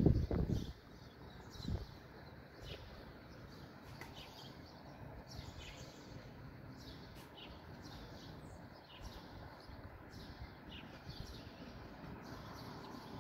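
Birds chirping on and off, short high calls scattered through a steady outdoor background, with a low rumble in the first second.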